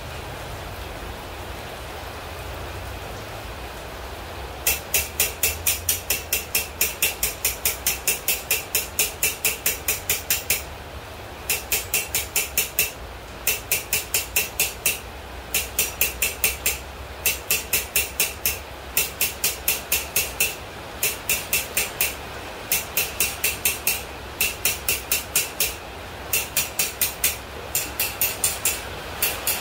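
Hand hammer striking red-hot pipe on an anvil, drawing it down, in quick runs of about four to five ringing blows a second with short pauses between runs, starting about five seconds in. Steady rain hiss underneath.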